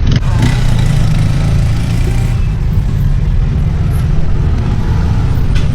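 Motor vehicle engine running steadily, a loud, even low rumble.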